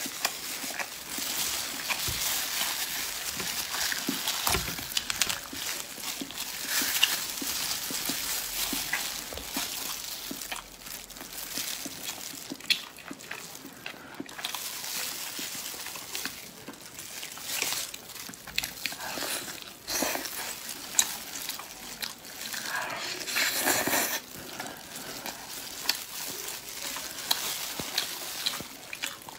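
Close-miked eating of spiced pork ribs: chewing with many short wet smacks and clicks, and meat being pulled apart by hands in plastic gloves.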